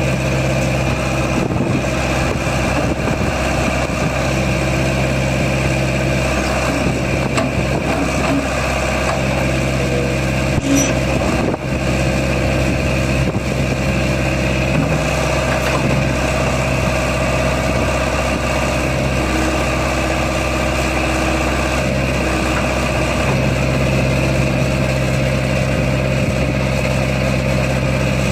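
New Holland LB75B loader backhoe's 85 hp diesel engine idling steadily, with a single brief bump about eleven seconds in.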